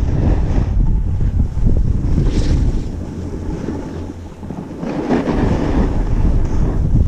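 Wind rushing over an action camera's microphone while a snowboard slides down packed snow, its edge scraping in surges as it turns. The sound eases briefly around four seconds in, then builds again.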